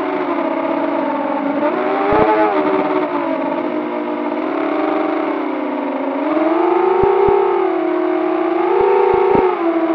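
Brushless motors and propellers of a 6-inch FPV quadcopter (2207 1650kv motors on 6S) whining in flight, the pitch rising and falling with throttle. It dips about three seconds in and climbs again after six seconds. A few brief low thumps come through.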